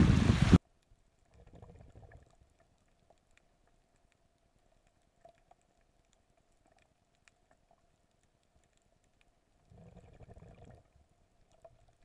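Wind and surf on the microphone at the water's edge cut off suddenly about half a second in. The rest is the muffled quiet of a camera underwater: a faint steady hum, with two brief low muffled rushes, one near the start and one near the end.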